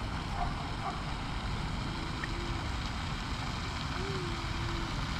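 Steady wind rumble buffeting the microphone, with a few faint short pitched sounds about two and four seconds in.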